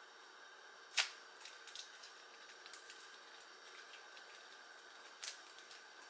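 A bouillon cube's wrapper being picked open by hand: faint scattered crinkles and ticks, with a sharp click about a second in and another near the end.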